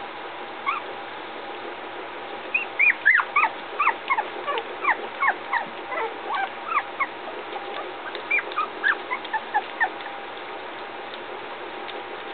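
Three-week-old puppies whimpering and squeaking: many short, high-pitched cries in quick succession, each arching up and then down in pitch, dying away about ten seconds in.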